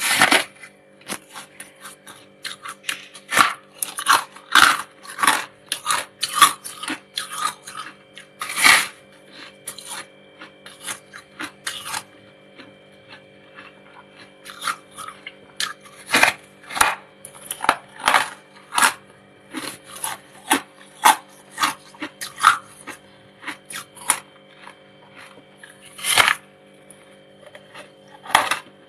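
Freezer frost being bitten and chewed close to the microphone: an irregular run of crisp crunches with a couple of short pauses, over a faint steady hum.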